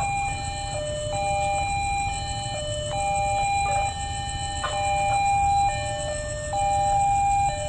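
Railway level-crossing warning alarm sounding its electronic two-tone signal, switching between a higher and a lower tone about every 0.8 s, the warning that a train is approaching and the crossing is closing. A steady low rumble lies underneath.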